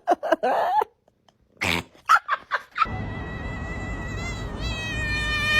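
Domestic cat making a few short cries, then one long high-pitched held cry lasting about three seconds that cuts off near the end.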